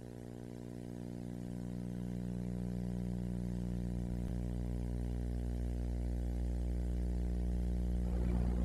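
Steady electrical hum with many overtones, slowly growing louder; a faint scratchy noise joins near the end.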